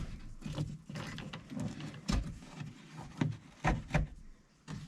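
Irregular clicks, knocks and rustling from handling a car door panel and its wiring harness connectors.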